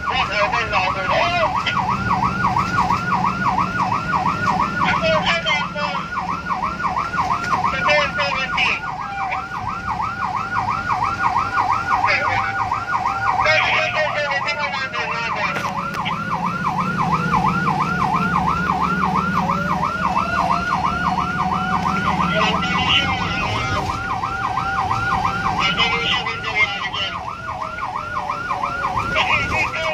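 Fire truck sirens heard from inside a following car: a fast yelp warbling about three times a second over a slower wail that rises and falls over about ten seconds.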